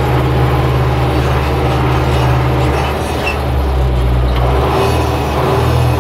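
Zetor 8011 tractor's four-cylinder diesel engine running at full throttle while driving, heard from inside the cab: a loud, steady engine drone.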